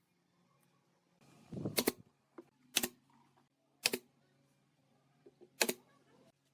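Four sharp, loud knocks roughly a second apart, with a few fainter clicks between them.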